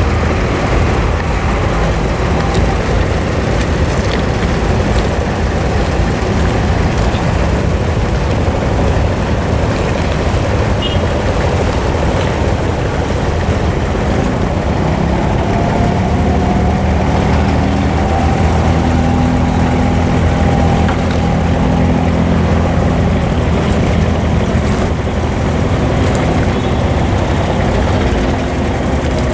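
Diesel engine of an abra (wooden Dubai Creek water taxi) running steadily, with a faint rising tone partway through.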